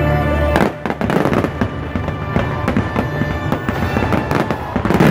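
Fireworks bursting in quick succession, a dense run of bangs and crackles over the show's music. A held music chord drops away about half a second in, and a louder cluster of bangs comes near the end.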